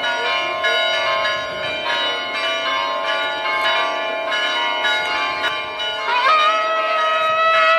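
Church bells ringing, with repeated irregular strikes over the hum of their ringing tones. About six seconds in, a long held musical note comes in over the bells.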